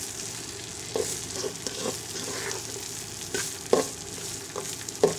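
Washed raw rice frying in soybean oil in a metal pot, sizzling steadily while a spatula stirs it, with irregular sharp scrapes and knocks of the spatula against the pot.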